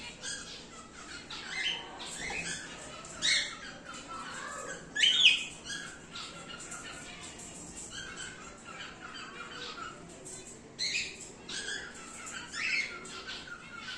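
Cockatiels calling: a string of short calls, the loudest about five seconds in.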